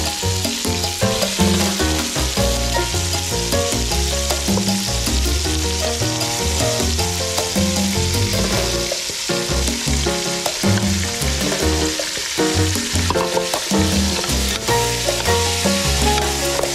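Raw pork pieces frying in hot oil with aromatics in a large aluminium pot, a steady sizzle, with chopsticks adding and stirring the meat. Background music with a stepping bass line plays under the sizzle.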